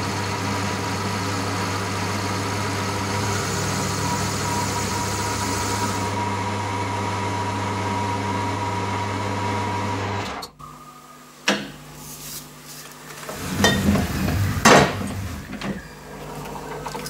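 Metal lathe running with a steady hum and a thin high whine while facing a cast aluminium bandsaw table bolted to its faceplate. It is switched off about ten seconds in and falls quiet abruptly, followed by a sharp click and a few knocks as the part is handled.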